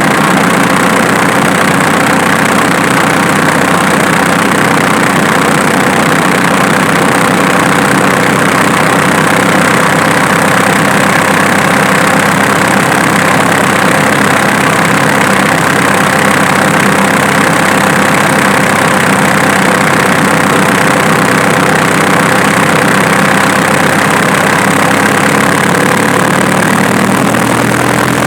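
Diesel engine idling steadily, heard close up.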